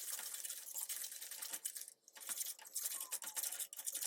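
Blended onion-chili masala paste frying in oil with a splash of water, giving a faint, dense crackle of small pops and spits that briefly drops away about two seconds in.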